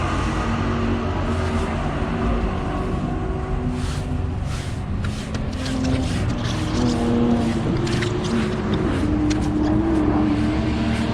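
Race car engines running on the circuit, a steady rumble whose pitch rises and falls. From about four seconds in, a run of short clicks and knocks sits over it.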